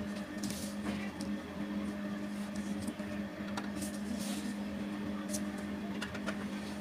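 A marker pen scratching short strokes on paper, with a metal ruler being shifted now and then, over a steady low electrical hum.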